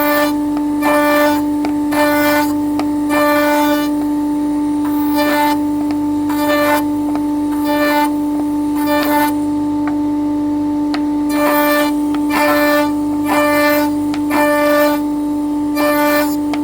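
A woodworking machine running with a steady hum, with short bursts of louder noise about once a second as the wood is worked.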